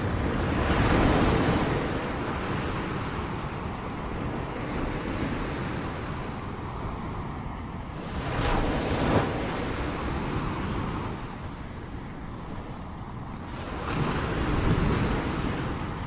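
Ocean waves breaking on a shore: three surges of rushing surf, one soon after the start, one in the middle and one near the end, over a steady low wash of water between them.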